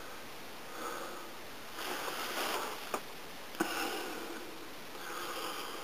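A person breathing heavily through the nose, soft breaths about every second and a half, with two short sharp clicks about three seconds in.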